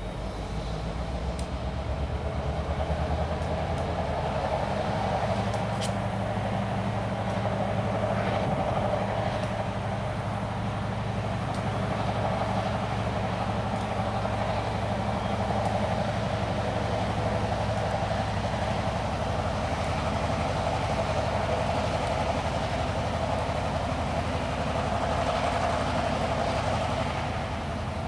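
EJ&E SD38-3 diesel road-switcher locomotive approaching slowly with a string of hopper cars, its diesel engine running with a steady low drone over rolling wheel and rail noise. It grows louder over the first few seconds, holds steady, and eases off slightly near the end.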